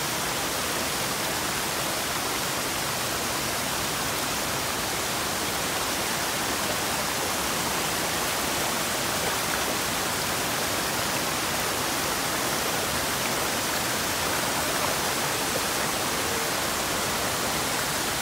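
Steady rush of a mountain waterfall and the water running over the boulders of the stream below it.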